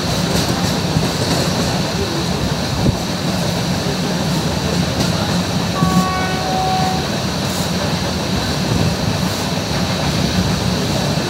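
Howrah–Malda Town Intercity Express passenger train running along the track, with a steady rumble and rail noise. A brief high tone sounds about six seconds in.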